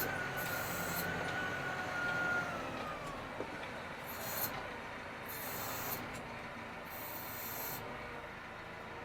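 Tractor running, heard from inside the cab, with a high steady whine that slides down in pitch about two and a half seconds in. Several short bursts of hiss come through later on.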